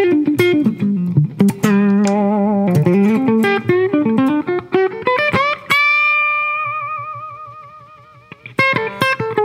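Hagstrom Viking semi-hollow electric guitar played clean through a Fairfield Circuitry Accountant compressor pedal: quick single-note picking, then one long held note with vibrato that slowly fades, before the picking starts again near the end.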